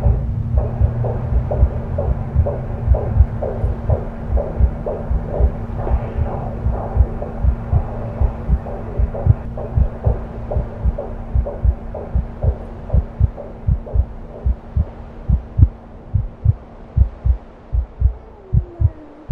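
Heartbeat sound effect of a baby in the womb: quick, even thuds at roughly two beats a second over a steady low hum, the background thinning out toward the end.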